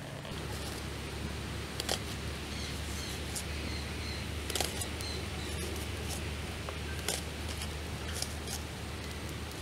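Wood fire crackling: scattered, irregular sharp pops over a steady low rumble.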